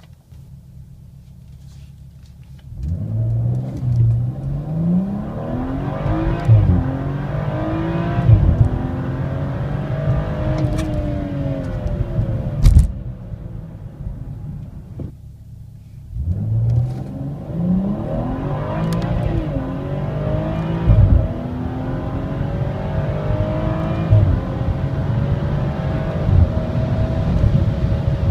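BMW X4 M40i's 3.0-litre turbocharged inline-six (N55) heard from inside the cabin: a quiet idle, then a full-throttle launch about three seconds in, the revs climbing and dropping again with each quick upshift of the eight-speed automatic. A sharp click comes about thirteen seconds in, then the engine eases off for a few seconds before pulling hard again from rolling speed through more upshifts.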